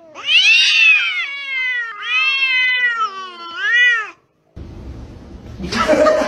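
A cat meowing in about four long, drawn-out calls that rise and fall in pitch. After a brief silence, mixed noise comes in near the end.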